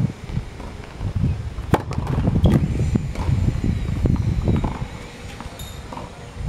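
Wind buffeting the microphone with a steady low rumble. A few sharp taps from a tennis ball bounced on a hard court before a serve come through it, the clearest about two seconds in.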